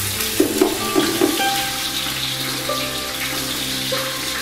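Oil sizzling in a hot pot lined with flatbread as parboiled rice is tipped in from an aluminium tray, with a few soft knocks in the first second or so.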